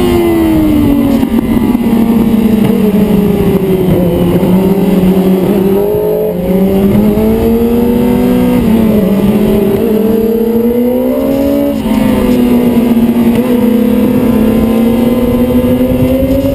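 2006 Yamaha R6 inline-four sport bike engine under load on track, heard from the bike itself with wind rushing over the microphone. The engine note falls in the first two seconds, then rises and falls with the throttle through the bends, with brief drops about six and twelve seconds in.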